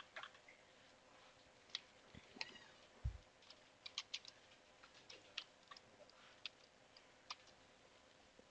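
Faint, irregular clicks of computer keyboard keys being typed, with a single low thump about three seconds in.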